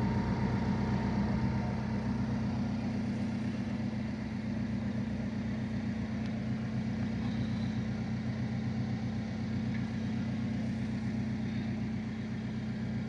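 Alfa Romeo 4C Spider's 1750 turbocharged four-cylinder engine idling steadily.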